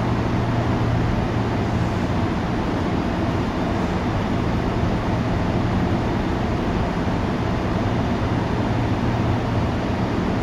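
Tokyu 8500 series electric train running, heard from inside the car: a steady rumble of wheels and running gear with a constant low hum underneath.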